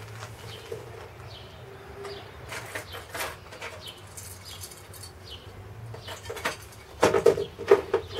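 A clear plastic tackle box and hard-bodied fishing lures being handled, making scattered light clicks and rattles, with a louder burst of clatter about seven seconds in.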